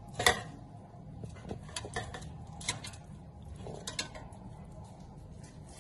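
Scattered light clicks and taps of turkey pieces being handled and set into an air fryer basket by hand, the sharpest just after the start, over a low steady background hum.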